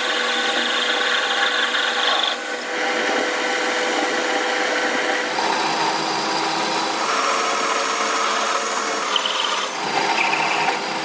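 Power tools working metal, a steady machine noise with a faint hum running through it. The sound changes abruptly about two seconds in, five seconds in and near the end.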